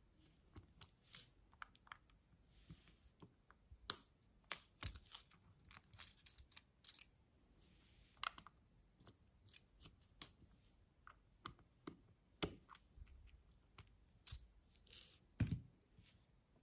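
A small flathead screwdriver prying the plastic scissor mechanism and key clips loose on an Apple Magic Keyboard 2. It makes an irregular string of sharp little plastic clicks and snaps, with a few soft scrapes, and a louder snap near the end.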